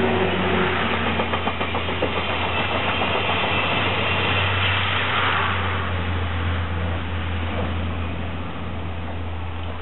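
12-series passenger coaches rolling past on a train, the wheels clicking rapidly over the rail joints. The noise eases off once the last coach has gone by, about halfway through.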